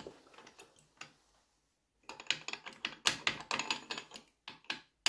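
Quick, irregular metal clicks and taps of tools and parts at the piston of a Kohler Magnum M18 engine as its C-clips and wrist pin are removed. The clicks come thickest in the second half.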